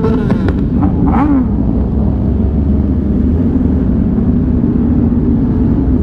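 Sport-bike engines running at low speed in a dense pack of motorcycles, a steady engine hum over a low rumble. About a second in, one engine's pitch briefly rises and falls.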